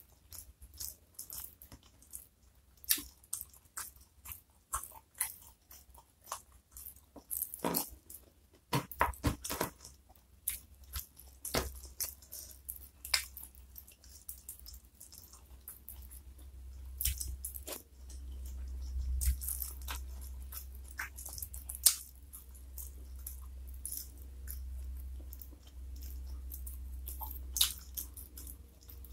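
Close-miked chewing and crunching of fried chicken and its crispy fried crumbs, eaten by hand with sambal: irregular sharp crackles and clicks. A low hum underneath grows louder in the second half.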